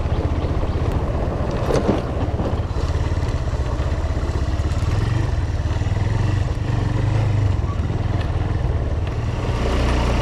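Motorcycle engine running steadily at low speed, heard from the rider's seat, as the bike rattles over a brick-paved road; a brief clatter about two seconds in.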